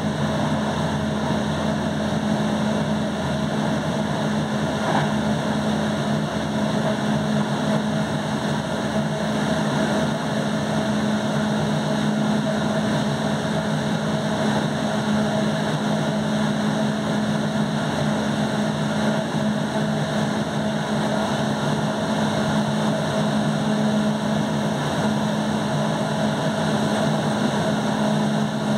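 EuroCity passenger train running at speed on the line: a steady rolling noise with a constant low hum.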